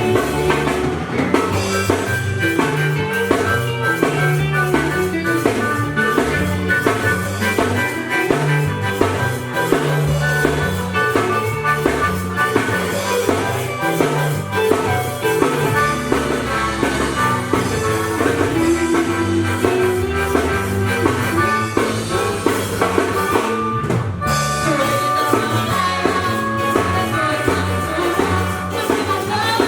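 A ska band playing live, with a drum kit keeping a steady beat under held melody lines. About four-fifths of the way through, the sound stops for a split second.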